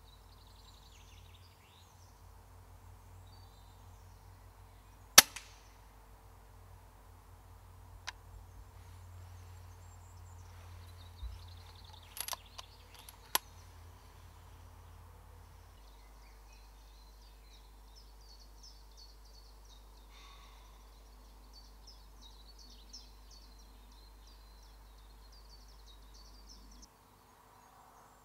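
A single shot from a Daystate Huntsman Revere pre-charged pneumatic air rifle about five seconds in, a short sharp report, followed by a few lighter clicks and knocks over the next several seconds. Small birds sing through the second half.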